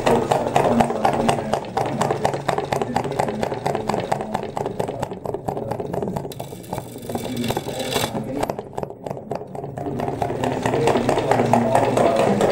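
Homemade two-cylinder Stirling engine heated by candles, running with a rapid, regular rattling clatter from its moving parts. The candle heat is not enough to drive it any faster. The clatter is softer for a few seconds midway.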